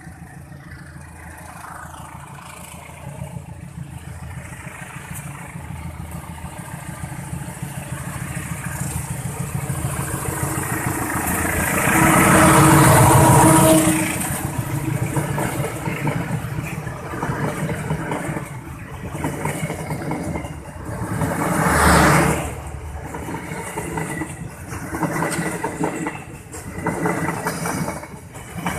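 A diesel-hauled passenger train passing close. The locomotive grows steadily louder as it approaches and is loudest about twelve to fourteen seconds in. Then the coaches rumble past with a run of rhythmic wheel clacks over the rail joints.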